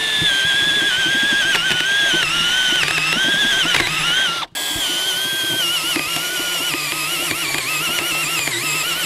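Drill running under load as its bit cuts a hole through the truck's steel fender, a steady whine whose pitch wavers as the bit bites. It stops for an instant about halfway, and the pitch rises near the end as the bit breaks through.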